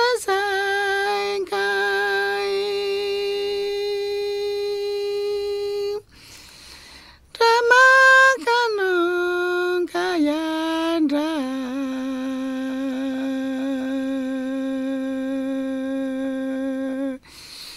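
Icaro, a Shipibo healing song, sung solo in long held notes, each sliding up or down and then settling on a steady pitch. About six seconds in, the singing stops for a breath of just over a second, then resumes and settles on a lower note.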